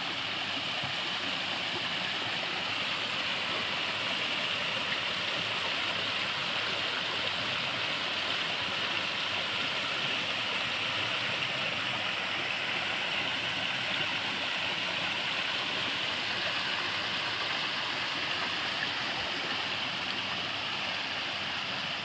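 Water pouring from a rock waterfall into a garden pond: several thin falls splashing onto the pond surface in a steady, even rush.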